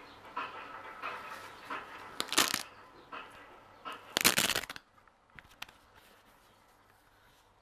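Rustling and handling noises with scattered clicks, and two louder rasping bursts about two and four seconds in, after which it goes much quieter.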